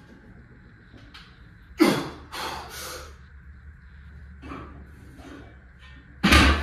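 A man breathing hard with forceful exhales, several separate breaths, the loudest about two seconds in and another near the end with a low thud. This is heavy breathing from the exertion of lifting heavy weights.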